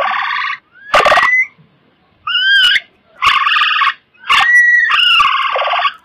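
Coypu (nutria) calling: a series of about five loud, high calls in quick succession with short gaps between, some gliding upward in pitch.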